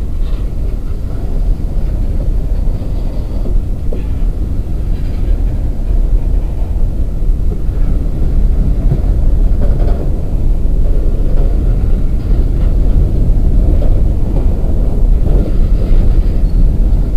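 Empty coal hopper cars rolling past close by: a steady heavy rumble of steel wheels on rail, growing a little louder partway through, with faint higher squeals now and then.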